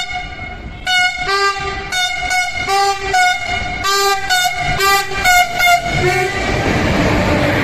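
Wabtec diesel locomotive's air horn sounding a rapid run of short blasts, about two or three a second, as the train comes through the station at speed. About six seconds in the blasts stop and the rising rush of the passing train takes over.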